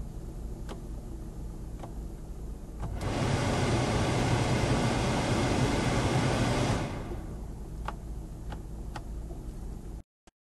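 Ford Focus Mk1 heater blower fan running loudly with an even rush of air for about four seconds in the middle, over a steady low hum, with a few sharp clicks before and after. The blower running only on its top setting is the sign of a failed blower motor resistor.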